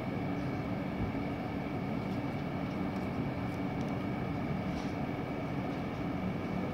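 Steady low rumble of outdoor background noise with a constant faint high-pitched whine, like distant traffic or machinery; no distinct events stand out.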